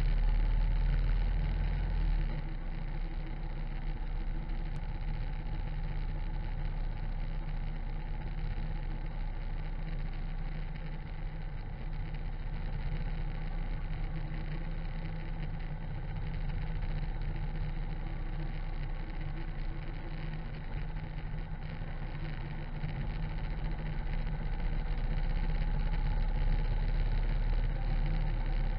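Harley-Davidson V-twin motorcycle running at road speed, a steady engine note mixed with wind rushing over the low-mounted microphone and the tyres on wet asphalt. It is louder in the first two seconds and again over the last few seconds.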